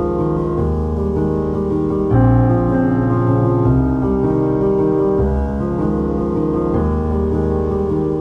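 Background music led by piano or electric keyboard: sustained chords over a steady bass line, changing every couple of seconds.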